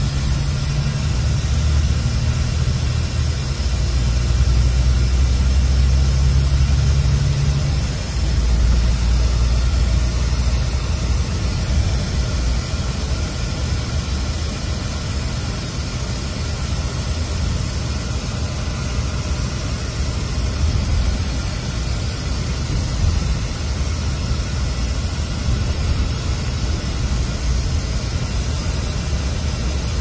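Interior of a Scania OmniExpress coach on the move: a steady low engine drone under a loud, even hiss of the air conditioning. The engine's low note changes about eight seconds in.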